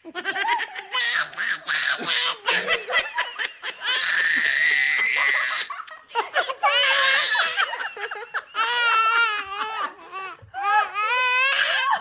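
A baby squealing and yelling in high-pitched cries, mixed with laughter. There is a long shrill screech about four seconds in, and warbling high cries near the end.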